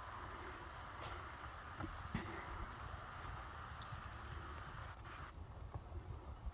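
Steady high-pitched chorus of crickets singing in an autumn field, with a softer background hiss that fades out about five seconds in.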